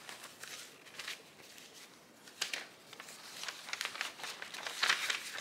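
Large old paper pattern sheet being folded and handled, the paper crinkling and rustling in short irregular rustles, the loudest near the end.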